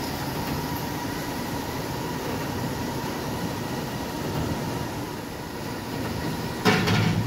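Steady mechanical rumble with a faint high whine, and a sudden louder clatter near the end.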